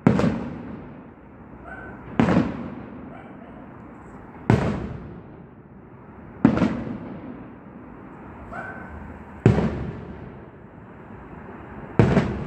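Aerial firework shells bursting one after another: six booms two to three seconds apart, each trailing off in a fading rumble.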